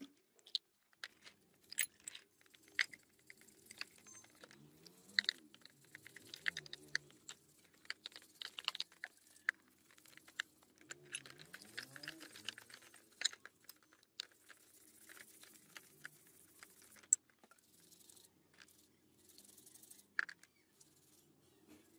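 Small steel gun parts clicking and clinking against a plastic tray as they are handled, then a stiff brush scrubbing the parts in a tray of liquid, with scattered sharp clicks and small splashes.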